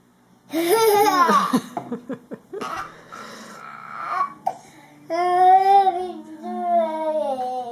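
A young child's voice: two long, high-pitched wordless vocal sounds, each falling in pitch, with breathy sounds between them.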